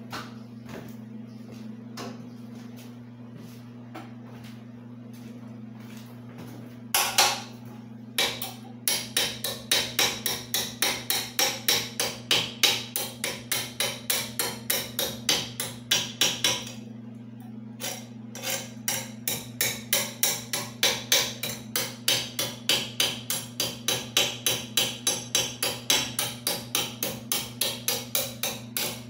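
Electric arc welding: the welder hums steadily, and about seven seconds in the arc strikes and crackles in quick rhythmic pulses, about three a second. The arc breaks off briefly around the middle, then starts again.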